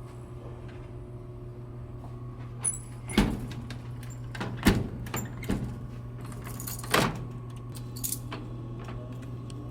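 Keys jingling and a run of sharp metal clacks and knocks as a vending machine's door and lock are handled, over a steady low hum. The loudest knocks fall about three, four and a half and seven seconds in.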